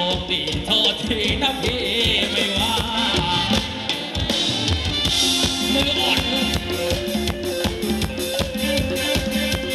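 Live band playing upbeat Thai ramwong dance music, a drum kit keeping a steady, fast beat under a melody line.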